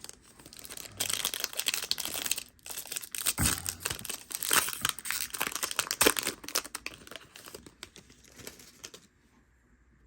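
Foil Yu-Gi-Oh! booster pack wrapper being torn open and crinkled in the hands: a dense, crackling rustle of foil that stops about nine seconds in.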